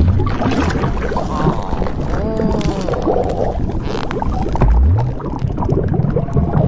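Blueberry-inflation sound effect: liquid gurgling and sloshing over a body swelling up, with wavering creaking glides about two seconds in and a low rising sweep near five seconds.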